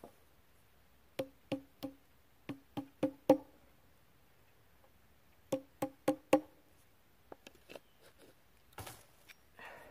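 A hammer striking wood, as when driving nails into a board: two runs of blows, seven then four, each with a hollow ring and getting heavier. A few light clicks and a short rustle follow near the end.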